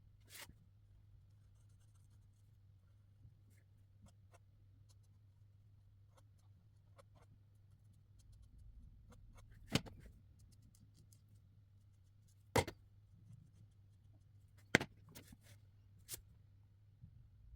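Markers working on paper, faint scratchy strokes with three sharp clicks about ten, thirteen and fifteen seconds in, over a steady low hum.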